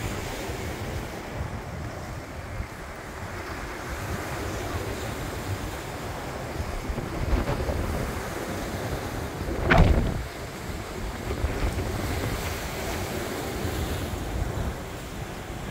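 Wind buffeting the microphone over the steady wash of surf on a rocky shore, with one brief louder rush about ten seconds in.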